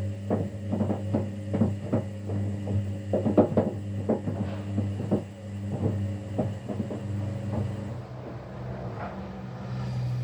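Kunft washing machine running a quick 15-minute wash: the motor hums steadily while the tumbling load knocks in the drum, two or three knocks a second, which stop about eight seconds in. Near the end the hum steps up in pitch as the drum drive changes.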